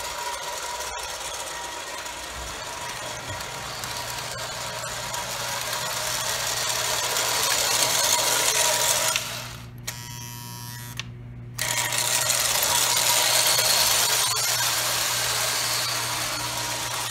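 Postwar Lionel 2020 steam-turbine toy locomotive running on three-rail O-gauge tinplate track, its electric motor and gears whirring loudly and steadily over a low hum. It gets louder as the train passes close by, drops away sharply for about two seconds near the middle, then comes back.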